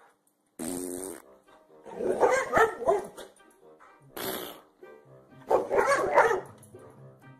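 Boxer dog barking in a few drawn-out vocal bursts, each about a second long.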